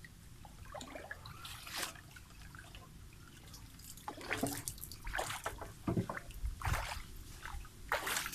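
Splashing and sloshing in shallow floodwater: a few faint splashes at first, then a run of irregular splashes from about four seconds in.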